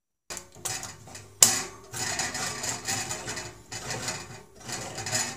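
Handheld crank can opener biting into a steel soup can's lid with a sharp click about a second and a half in, then grating as the crank is turned in several strokes to cut around the rim.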